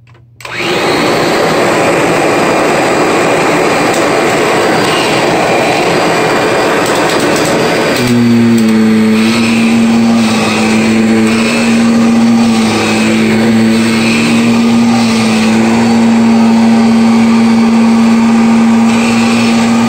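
Kirby upright vacuum cleaner starting up and running over carpet, a loud, steady motor and fan noise. About eight seconds in a steady hum joins the motor sound.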